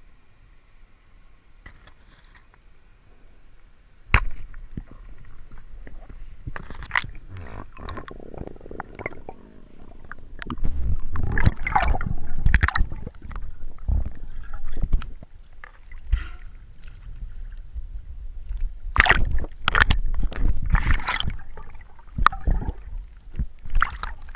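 Water sloshing and gurgling around a diver's underwater camera, with a single sharp click about four seconds in. Louder irregular splashing bursts come in the second half, as the camera reaches the surface.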